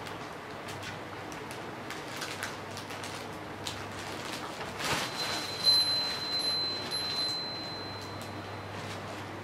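Crinkly nylon play bag rustling and crackling as a cat wriggles inside it. About five seconds in a louder rustle comes, and a high chime rings steadily for about four seconds before fading.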